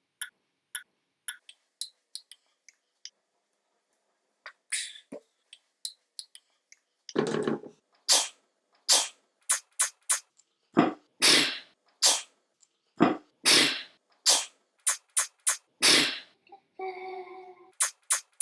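A run of short, sharp sneezes, about a dozen in quick succession after several seconds of near quiet. A steady pitched tone follows near the end.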